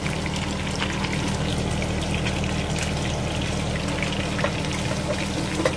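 Small whole fish frying in hot oil in a pan: a steady sizzle with scattered pops and crackles, over a steady low hum, and one sharper click near the end.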